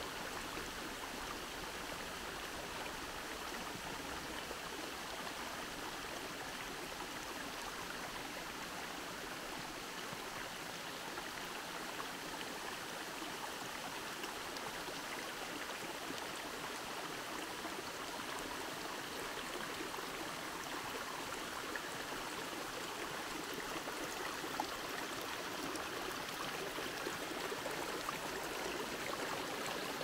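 Steady rushing of running water, a little louder near the end.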